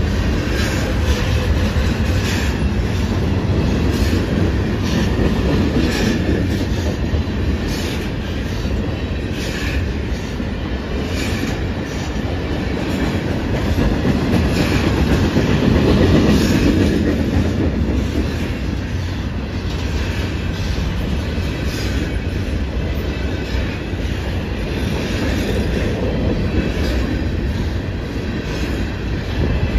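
Covered hopper cars of a freight grain train rolling steadily past: a continuous low rumble of steel wheels on rail, with frequent clicks and clacks from the wheels, swelling a little about halfway through.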